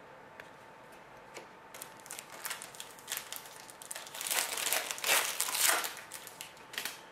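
A trading card pack wrapper being torn open and crinkled in the hands, a run of irregular crackly rustles. It starts about two seconds in and is loudest a little past the middle.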